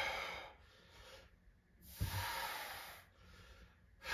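A man breathing hard from exertion during a core exercise. There are airy breaths about every two seconds: one fading out at the start and another about two seconds in.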